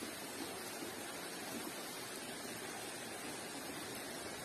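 Steady, even rush of floodwater pouring along a flooded street.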